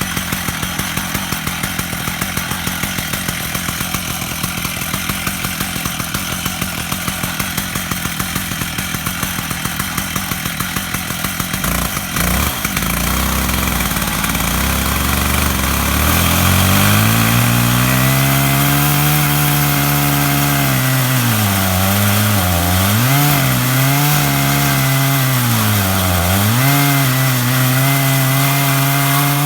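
Stihl MS 880 two-stroke chainsaw on an Alaskan mill, idling with a fast, even pulse, then opened up about twelve seconds in to full throttle, its 36-inch bar and ripping chain cutting lengthwise through a black walnut log. Under load the engine note holds high and dips twice as the saw bogs in the cut.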